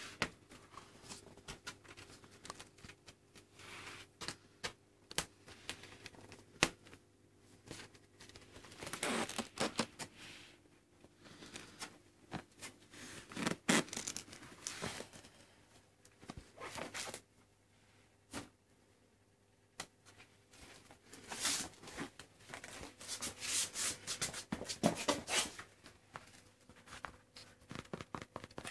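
Irregular scratching and rustling with scattered small clicks, in clusters, as kittens move about and play.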